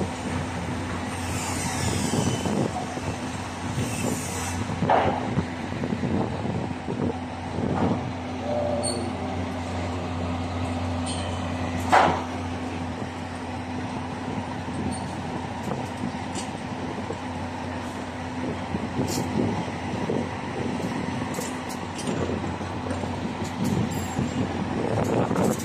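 Construction-site machinery running with a steady low engine hum, under scattered knocks and clanks of site work. One sharp, loud clank comes about twelve seconds in, and the hum fades near the end.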